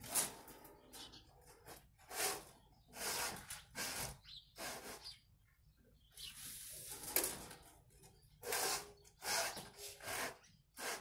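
Electrical wires being pulled hand over hand through a conduit: a series of irregular scraping, rustling strokes, about one every second, as each length of wire slides through.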